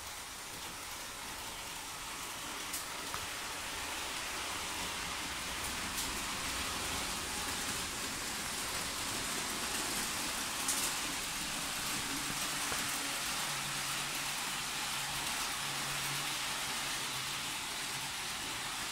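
Model railway trains running on the layout: a steady rolling hiss of wheels on track, with a faint low motor hum coming in about two-thirds of the way through.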